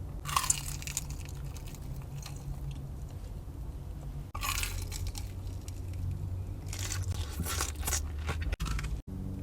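A person chewing and biting a mouthful of sauced steak close to the microphone, in several short bursts of wet chewing noise.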